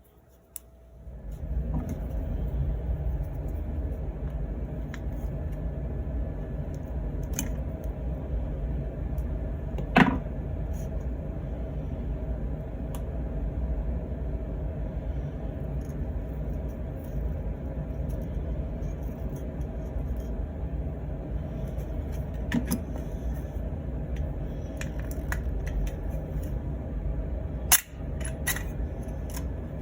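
A steady low machine rumble starts about a second and a half in and keeps on. A few sharp metallic clicks and clinks sound over it, the loudest about ten seconds in.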